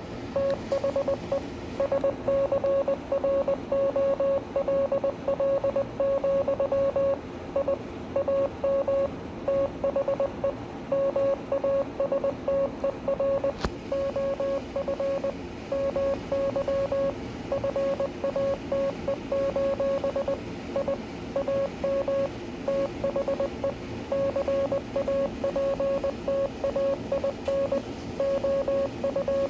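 Morse code sent by hand: a single mid-pitched beep keyed on and off in dots and dashes, over a steady low background noise, with one brief click about halfway through.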